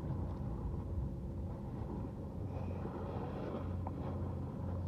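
A steady low hum over a rumbling background noise.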